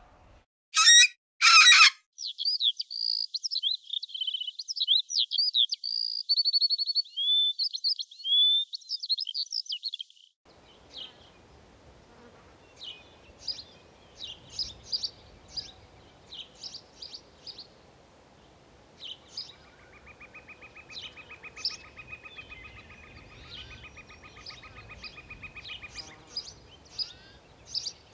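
Wild birds calling and singing. There are two loud harsh calls in the first two seconds, then quick chirping song notes for about eight seconds. After that come scattered short chirps over faint low background noise, with a rapid pulsing trill lasting several seconds near the end.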